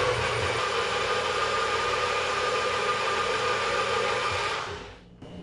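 Countertop blender motor running steadily, blending strawberries with coconut milk: an even rushing noise with a steady whine, switched off near the end.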